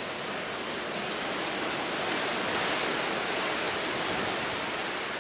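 Strong wind on the open deck of a ship at sea, blowing over the microphone together with the rush of the sea: a steady rushing noise that swells slightly midway.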